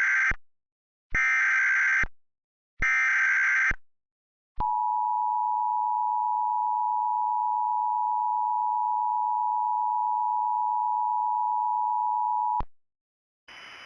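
Emergency Alert System header: bursts of screeching digital data from the SAME code, then the steady two-tone attention signal held for about eight seconds. A hiss comes in near the end.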